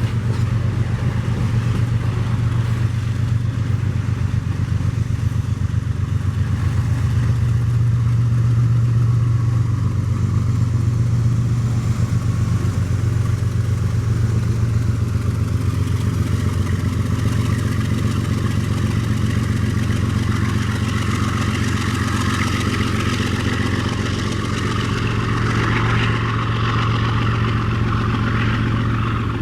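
Diesel locomotive engine rumbling steadily at one low pitch, with a little more rattle in the upper range in the later part.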